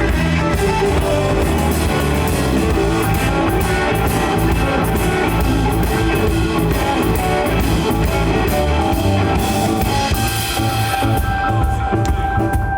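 Live blues-rock band playing an instrumental break: an electric guitar playing lead lines with held notes over a drum kit.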